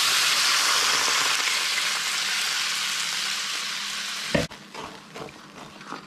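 Red wine poured into a hot fry pan sizzles loudly, deglazing the pan. The sizzle eases slightly, then cuts off abruptly with a thump about four and a half seconds in. After that comes quieter, irregular scraping of a wooden spoon stirring the wine in the pan.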